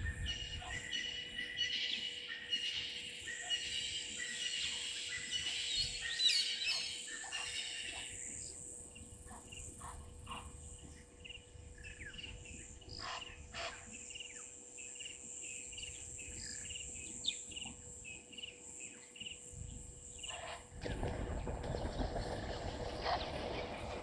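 Wild birds calling in the bush, a dense chorus of overlapping chirps for the first several seconds thinning to scattered single calls. A steady high whine runs underneath, and a low rumble comes in near the end.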